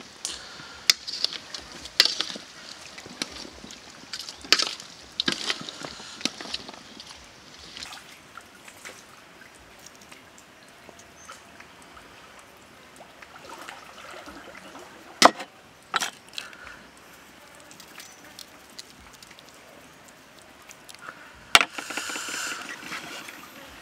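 A spoon clinking and scraping against a stainless steel tray as wet raw shrimp and vegetables are tossed, with many quick clicks early on; later liquid is poured from a cup over the mix, and two sharp knocks of something set down on the wooden table follow.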